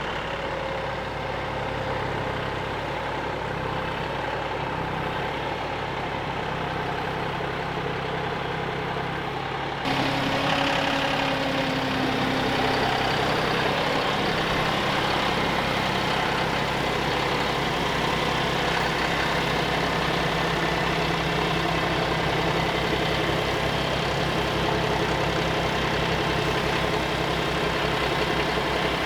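John Deere tractor engine running steadily at low revs. About ten seconds in it abruptly gets louder and brighter.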